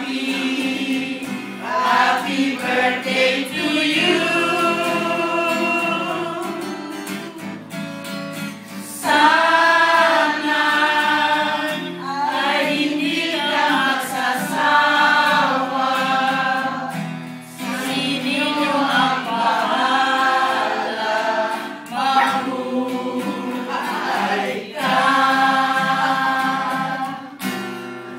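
A group of men and women singing together from song sheets, accompanied by an acoustic guitar, in sung phrases with short pauses between them.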